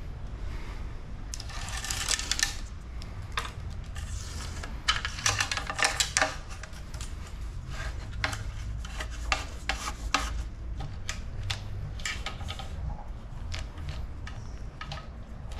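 Workshop handling noise from bike parts and tools: irregular clicks and clinks throughout, with a short scraping rub about two seconds in and a quick run of clicks around five to six seconds in.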